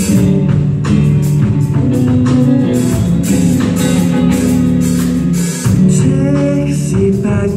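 Live rock band playing an instrumental passage: electric guitar and bass guitar chords over a drum kit with regular drum and cymbal hits.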